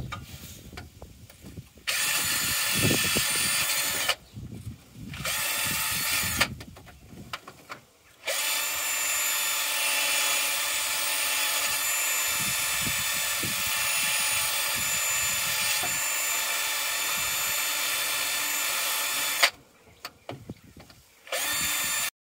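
Handheld rotary power tool polishing corrosion out of the Mazda MX-5 engine's coolant passage. It runs in bursts with a steady whine: two short runs of a second or two, then one long run of about eleven seconds, then a brief one near the end.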